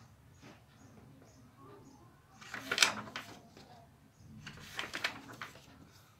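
Paper rustling as the pages and cover of a handmade paper notebook are handled and turned: two brief rustles, the louder one about two and a half seconds in and another around five seconds in.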